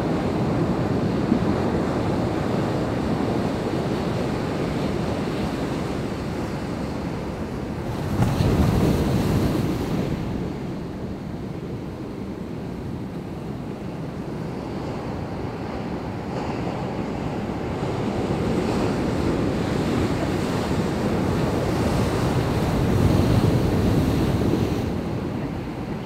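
Atlantic surf: waves breaking and foam rushing over rocks, a steady roar of water that surges with a sharp loud crash about a third of the way through, eases off, then swells again near the end.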